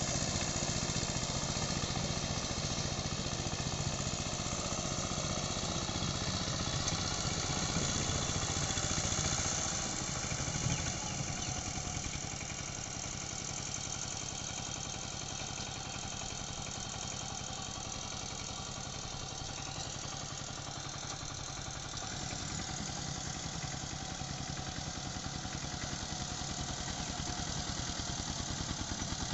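Dongfeng walking power tiller's 12 HP Changchai single-cylinder diesel engine running steadily under load as the rotary blades cultivate a flooded paddy field. The sound drops somewhat about ten seconds in and stays lower after.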